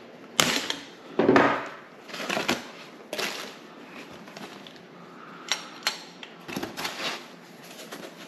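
Black foam packing sheet being handled and pulled off a child's electric bike: irregular rustling and scraping, loudest in the first couple of seconds, with two sharp clicks a little after halfway.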